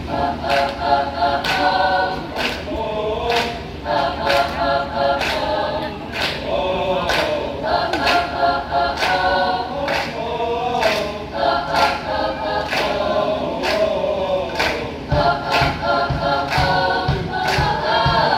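High school concert choir singing in parts, with sharp rhythmic accents cutting through about twice a second. Low thumps join the pulse near the end.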